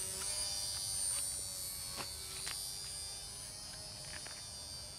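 Tiny electric motor and propeller of a Flyzone Fokker D.VII ultra-micro RC biplane at full throttle just after hand launch: a high-pitched buzzing whine that slowly fades as the plane climbs away.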